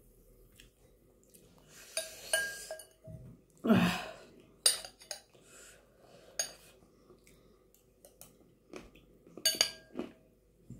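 Metal spoon clinking and scraping against a glass bowl as chana chatpate is stirred and scooped. There are a few sharp clinks and two longer scraping stretches, the louder one about four seconds in.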